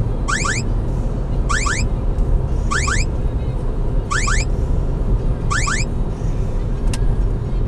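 Stinger DSI Computer radar detector sounding its alert for Ka-band police radar at 34.3 GHz: a pair of quick rising chirps, repeated five times about every second and a quarter, stopping about six seconds in. A single click near the end, over steady car road noise.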